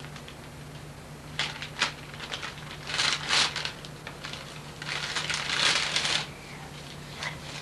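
Wrapping paper rustling in several short bursts as a present is handled, the longest about five to six seconds in.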